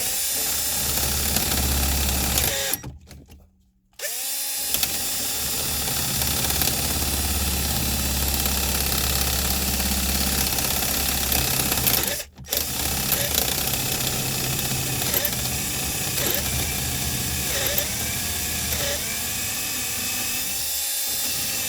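Ridgid power drill boring into a Dodge Ram's ignition lock cylinder, slow going. It runs in long stretches, stops for about a second near three seconds in and again briefly about twelve seconds in, and its pitch wavers as the bit bites.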